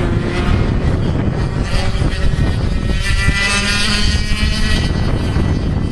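100cc two-stroke kart engine buzzing at high revs as the kart comes out of a corner and passes close by, its note loudest near the middle, over a steady low rumble.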